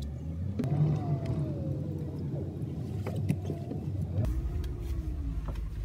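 A car driving slowly through a parking garage, heard from inside the cabin: a steady low engine and road rumble, with a couple of brief wavering squeals.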